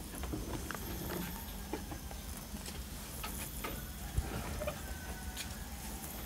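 Quiet ambience with a low steady hum and scattered faint clicks and ticks.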